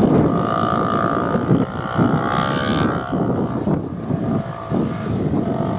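Several off-road motorbikes riding past, their engines growing loudest about two to three seconds in as they go by closest. Wind buffets the microphone.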